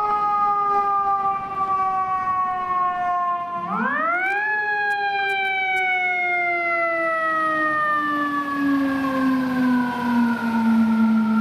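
FDNY fire engine's mechanical siren, most likely a Federal Q2B, winding up sharply at the start and again about four seconds in, each time slowly coasting down in pitch afterwards.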